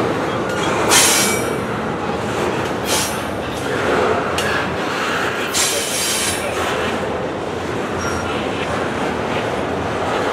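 Double-stack intermodal container well cars rolling past, a steady noise of steel wheels on rail. Brief high-pitched wheel squeals break in about a second in, again around three seconds, and for about a second near six seconds; the first is the loudest.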